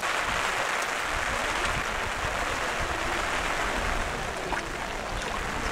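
Steady rain falling on a lake, an even hiss with no break.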